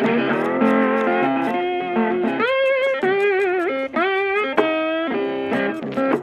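Background music led by an electric guitar playing a melody with bent, wavering notes.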